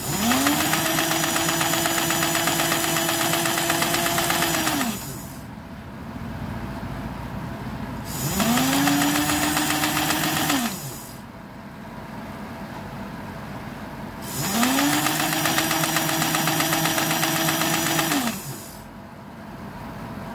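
Small electric motor and gear train of a toy steam locomotive, run three times: each time it spins up with a rising whine, runs steadily for a few seconds with a whirring gear noise, and winds down.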